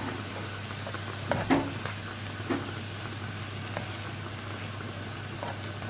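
Onion, garlic and chopped tomato sizzling gently in olive oil in a pan, with a few light clicks of a spoon against the pan, over a steady low hum.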